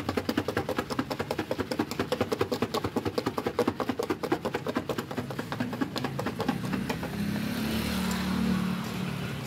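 Rapid, even knocking, about six or seven strikes a second, which stops about six and a half seconds in; a steady low engine hum then swells near the end.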